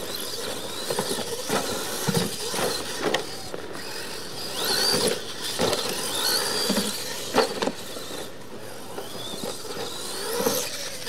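Radio-controlled monster trucks racing on dirt: their motors whine, rising and falling several times with the throttle, over the scrabble of tyres on dirt, with sharp knocks as the trucks land off ramps.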